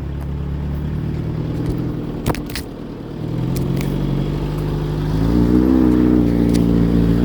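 Fiat 147 pickup engine labouring up a grassy slope in first gear. The revs sag about three seconds in, then climb and hold high while a drive wheel spins on the dry grass. There is a single sharp knock about two seconds in.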